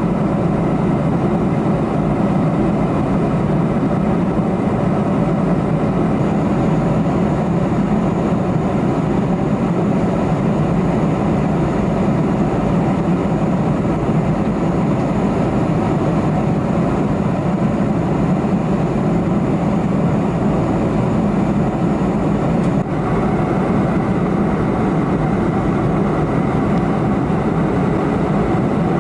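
Steady cabin noise of a Boeing 747-400 in cruise: a constant low drone of engines and airflow heard from a window seat. A faint high tone shifts slightly about three-quarters of the way through.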